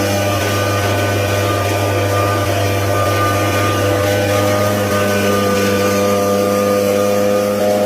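Leaf blower running at a steady speed, a constant hum with a set of steady tones over it.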